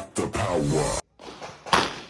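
Electronic music with gliding tones cuts off abruptly about halfway through, then a single sharp, loud gunshot crack from a firearm rings out near the end with a short echoing tail.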